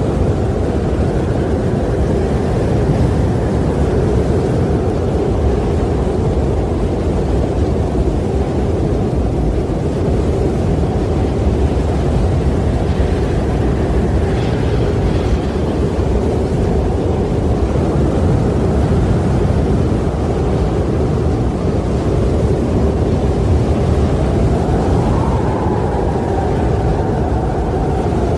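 Strong wind blowing steadily, a loud deep rush with a faint howling whistle that swells and falls away again near the end.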